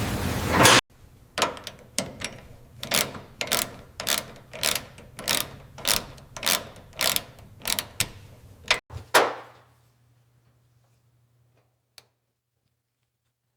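A loud hiss that cuts off abruptly, followed by a steady series of about a dozen sharp mechanical knocks, a little under two a second, and one louder knock near the end.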